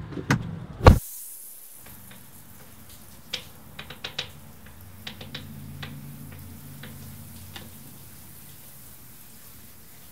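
A car's rear hatch is pulled down and slams shut about a second in. A steady hiss and faint low hum follow, with scattered light clicks and taps as small items are handled on a nightstand.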